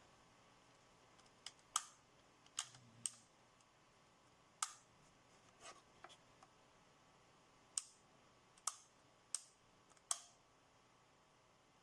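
A series of sharp, separate clicks at uneven intervals, about nine in all, against near silence. The loudest come about two seconds in and again near the end.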